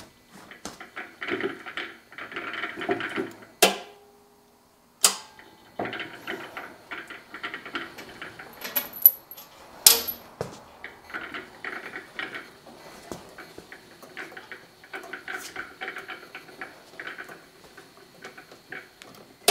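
Shop handling noise: quick metallic clicking and rattling, broken by a few sharp knocks, about four, five and ten seconds in.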